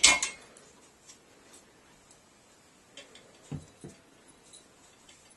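Metal parts of a Total Gym XLS clanking as the pinned-on handlebars are taken off, a loud clatter at the start, then a few light clicks and knocks about three seconds in.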